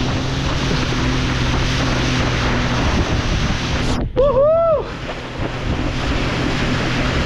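Jet ski engine running steadily at towing speed, with rushing water and wind buffeting the microphone. About four seconds in, a person gives a short, two-part rising-and-falling whoop over it.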